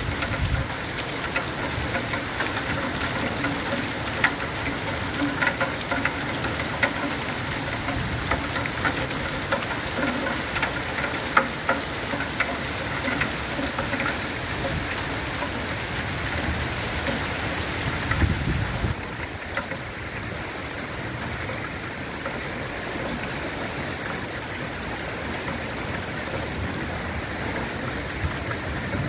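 Heavy rain pouring down, a steady hiss dotted with sharp taps of drops hitting surfaces. About two-thirds of the way through, the sound becomes slightly quieter and duller.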